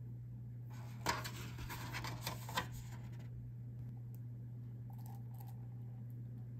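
Plastic candy-kit sachets crinkling and plastic parts clicking as they are handled and set down on a wooden table, for about two seconds from a second in, with a couple of sharper clicks. After that only a low steady hum and a few faint ticks remain.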